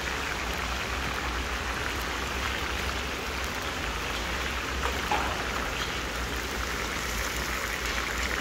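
Chunks of meat sizzling steadily in hot cooking oil in a huge plov cauldron (kazan), with a faint tick or two about five seconds in: the meat is being browned, the first stage of plov before the carrots go in.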